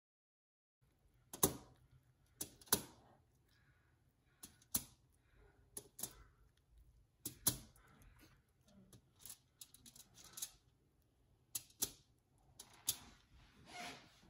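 Lemon slices being laid one by one onto a foil-lined baking sheet: irregular sharp taps on the foil-covered pan with soft foil rustling between them.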